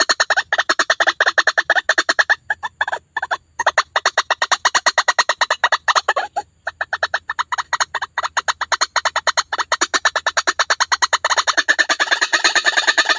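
White-breasted waterhen (ruak-ruak) calls played as a bird lure: a rapid, harsh run of repeated notes, about ten a second, broken by a few short pauses, growing denser near the end as calls overlap.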